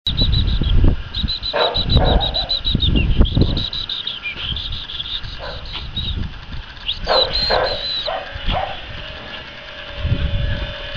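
High-pitched rapid chirping in runs, with a few short calls and bursts of low rumble on the microphone.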